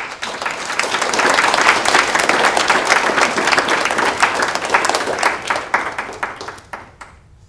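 Audience applauding: many hands clapping at once, starting suddenly, holding strong for several seconds, then thinning out and dying away near the end.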